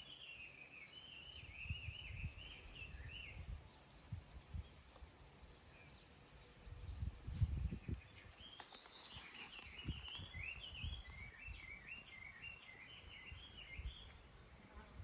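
Small birds twittering in two spells of a few seconds each, over irregular low rumbling thumps.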